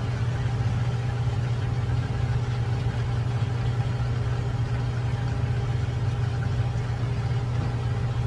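Steady low hum of a kitchen appliance or fan motor, unbroken and even, under a faint hiss of chicken simmering in sauce in a nonstick wok.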